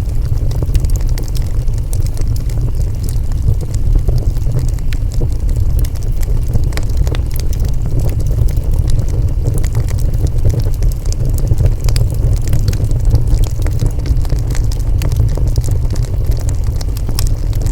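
Wood fire burning: frequent sharp crackles and pops, scattered irregularly, over a steady low roar.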